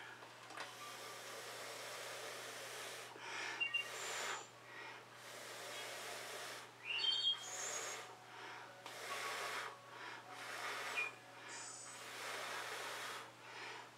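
A person blowing by mouth onto wet fluid acrylic paint on a canvas to push it outward into a bloom: a long run of breathy puffs, each about a second, with short pauses between and an occasional faint whistle.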